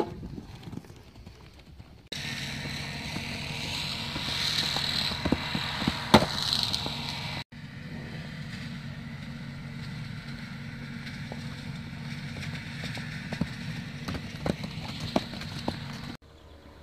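Hoofbeats of a pony cantering and jumping on a sand arena, scattered thuds with one loud one about six seconds in, over a steady rushing noise. The background noise changes abruptly twice, once about two seconds in and again around seven and a half seconds.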